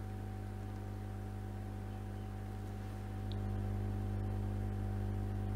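Steady low electrical hum with light hiss, stepping up a little in level about three seconds in.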